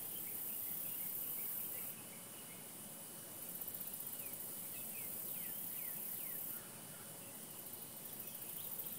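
Faint outdoor ambience: a steady high insect drone that shifts in level a few times, with scattered short bird chirps, most of them around the middle.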